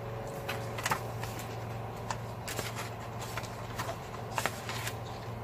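Pages of a paper planner being turned and handled: scattered light rustles and soft taps over a low steady hum.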